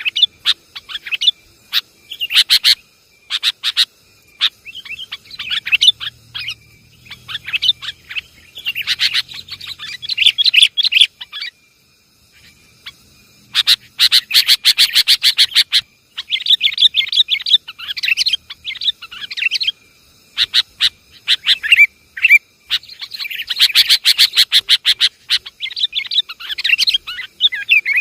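Sooty-headed bulbuls (kutilang) chattering and chirping in rapid bursts, with short pauses between them: a noisy lure call for trapping bulbuls.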